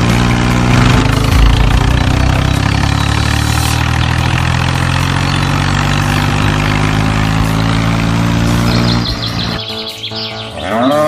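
Dumper truck engine sound effect running steadily, laid over a toy dump truck pushed by hand, stopping about nine and a half seconds in. Near the end a cow moos once, rising and then falling.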